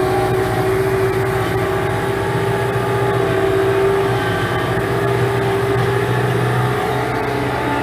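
95-horsepower tractor engine running steadily under load while pulling a three-furrow plough, heard from inside the cab.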